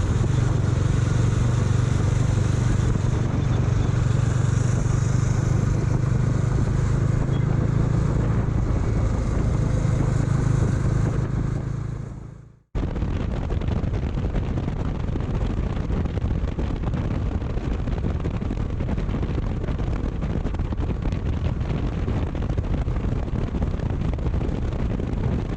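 Motorcycle engine running steadily with a low hum, fading out about halfway. After an abrupt cut, a steady rushing noise with no engine tone.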